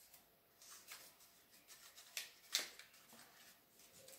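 Faint rustling and crinkling of cardboard toilet-roll tube strips being curled outward by fingers, with two sharper crackles a little after two seconds in.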